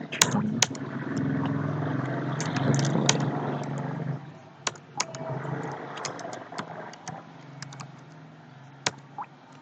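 Computer keyboard keystrokes, scattered single clicks, over a steady low hum that is louder for the first four seconds and then fades away.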